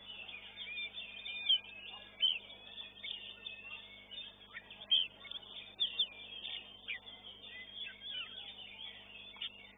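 Oriental magpie-robins (kacer) singing in contest: a busy, unbroken run of short, sharp whistles and chirps, heard thin through a CCTV camera's microphone.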